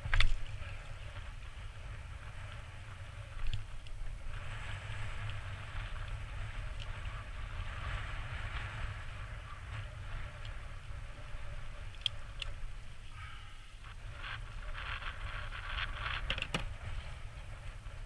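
Steady wind rumble on the microphone and water washing against a kayak hull, with a sharp knock right at the start and a few small clicks and scrapes from handling gear and a hooked gull.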